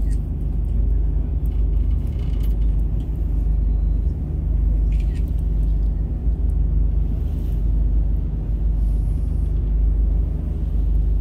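A passenger boat's engine running steadily while under way, a constant low rumble.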